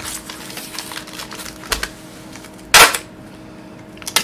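Handheld packing-tape gun laying and cutting packing tape on a corrugated cardboard package: faint rustling and scraping, one short, sharp, loud rip of tape about three quarters of the way through, and a couple of quick clicks near the end.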